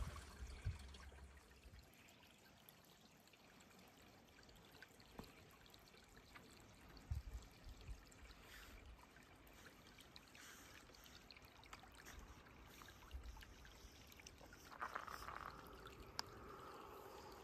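Faint trickling of a small rocky brook, with a few short low bumps; the trickle swells a little near the end.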